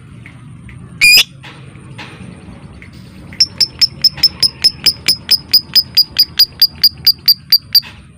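Lovebird calling: one loud, shrill call about a second in, then from about three seconds a long run of sharp, high, evenly spaced chirps, about five a second, that stops shortly before the end.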